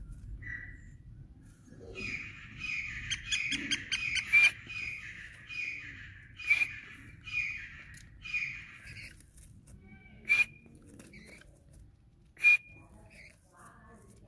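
Black francolin calling: a run of harsh notes repeated about twice a second for some seven seconds, then two single sharp, loud notes about two seconds apart.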